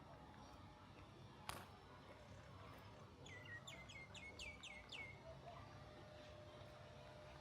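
A songbird sings a quick run of about seven falling notes about three seconds in, over a faint low background hum. A single sharp click comes about a second and a half in.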